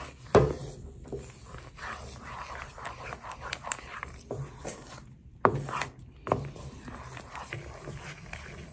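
Wooden spatula stirring thick berry syrup in a nonstick frying pan, rubbing and scraping over the pan's bottom. A few sharp knocks of the spatula against the pan come about half a second in and again around five and a half and six seconds.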